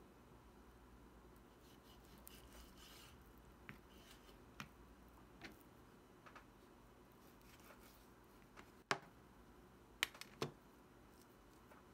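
Chef's knife slicing raw beef on a plastic cutting board: faint, scattered taps of the blade meeting the board, with three sharper knocks near the end.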